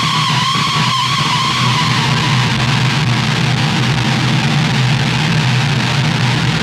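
DIY Devil's Triangle drone synth played through a chain of effect pedals, its sound changing as the knobs are turned. A wavering high tone fades out about two seconds in, leaving a steady low drone under a noisy hiss.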